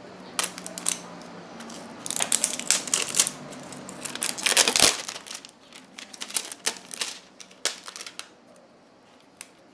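Eyeshadow palettes in their packaging being handled and lifted out of a box of honeycomb kraft packing paper: crinkling and rustling with quick light clicks and taps. It is busiest in the first half and then thins out to scattered ticks.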